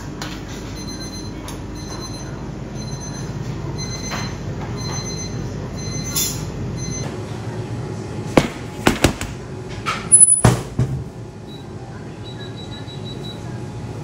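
Steady hum of bakery kitchen machinery, with a regular series of short electronic beeps for the first few seconds. Several sharp clattering knocks follow about eight to eleven seconds in, then a quick run of beeps near the end.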